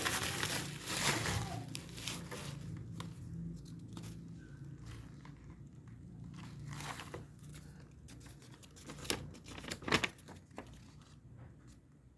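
Packaging being torn and crinkled for the first couple of seconds, then scattered sharp clicks and taps of handling.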